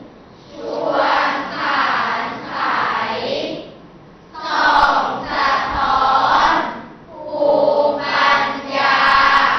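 A group of voices reciting a Thai klon verse aloud together in a slow, sung chant. The verse comes in phrases with short pauses between them, about four seconds in and again about seven seconds in.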